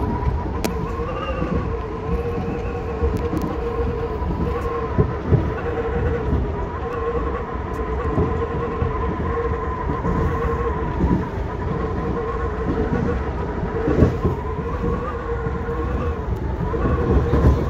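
Seoul Subway Line 8 train car in motion: wind whistling through the car as a steady buzzing tone that wavers slightly, over a low rumble of the wheels on the track, with a few short knocks.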